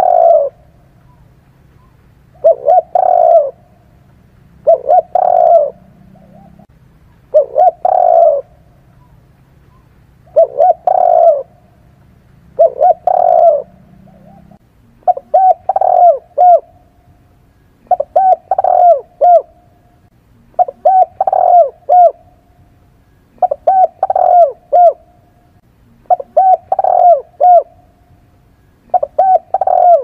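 Spotted dove cooing: a short phrase of a few low coos, repeated about every two and a half seconds, a dozen times. About halfway through, the phrases change to crisper ones with more separate notes.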